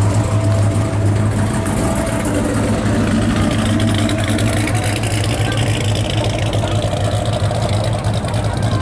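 A car engine idling steadily with a constant low hum, and crowd voices in the background.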